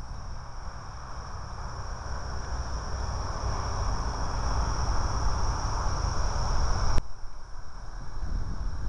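Parkzone P-51D RC plane's brushless electric motor and propeller: a steady high whine with a buzzing hum that grows louder, then cuts off abruptly about seven seconds in. Low wind rumble on the microphone runs underneath.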